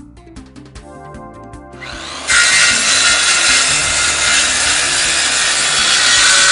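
Background music, then about two seconds in a power saw begins cutting through a laminate floorboard: a loud, steady cutting noise that lasts about four seconds and stops near the end.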